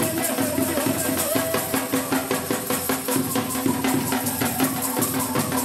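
Punjabi Malwai folk ensemble playing a fast rhythm of chimta jingles, wooden sapp clappers and dhol over a steady held tone.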